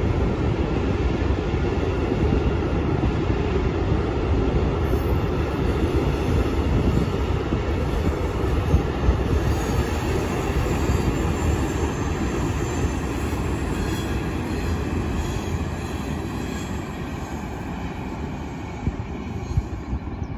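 Freight train of hopper wagons rolling past, a steady rumble of steel wheels on rail with faint high wheel squeal in the middle. It grows gradually quieter near the end as the train moves away.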